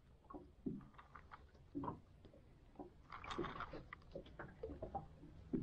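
Faint, irregular small clicks and taps from handling a fishing rod and spinning reel while feeling for a fish on the line, a little busier about three seconds in.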